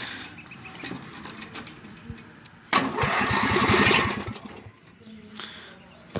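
Vintage lawn mower engine turned over on its starter: a sudden burst of rapid cranking pulses lasting about a second and a half, then stopping.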